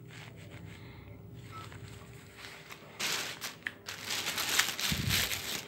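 Plastic bags crinkling and rustling as shoes wrapped in clear plastic are handled and rummaged through, starting about three seconds in after a quiet stretch, with a dull bump near the end.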